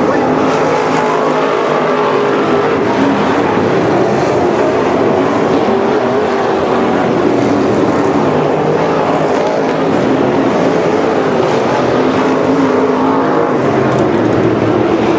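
Dirt-track modified race cars running on the oval: the loud, steady sound of several engines blending together, with no single pass standing out.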